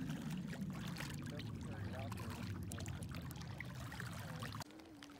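Small waves lapping and trickling among the pebbles at the lake's edge, with light ticking of water on stones, over a low steady rumble that cuts off suddenly about four and a half seconds in.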